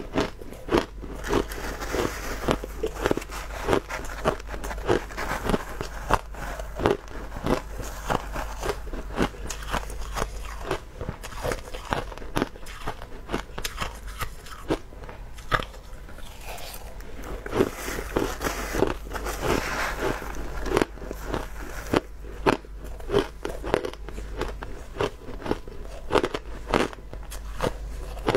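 Crushed ice being bitten and chewed close to the microphone: a steady run of irregular crisp crunches, with louder ones about once a second.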